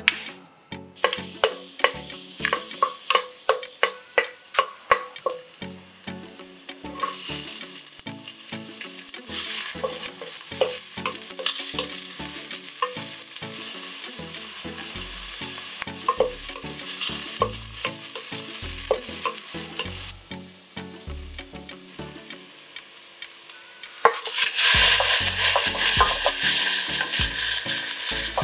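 Chopped garlic, then onion and ginger, sizzling in hot oil in a stainless steel pot while a wooden spatula stirs. For the first few seconds the spatula makes quick regular taps against the pot. About four seconds before the end, raw chicken pieces go in and the sizzle becomes much louder.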